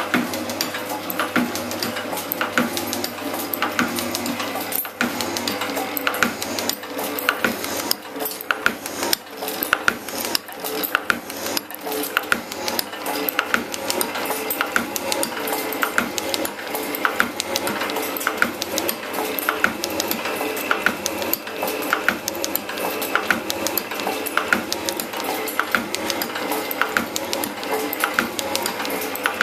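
Elliott 10M metal shaper running, its ram stroking back and forth with a regular metallic clack on each stroke as the automatic cross-feed ratchet indexes the table, the tool cutting stainless steel.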